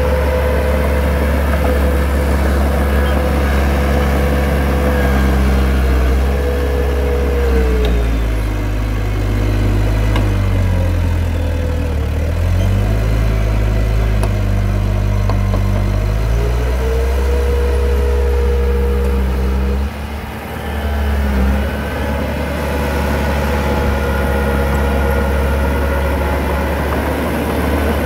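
Heavy diesel engine of an earthmoving machine running steadily. From about eight seconds in its note sags and then climbs back by about seventeen seconds in, and there is a brief dip in loudness near twenty seconds in.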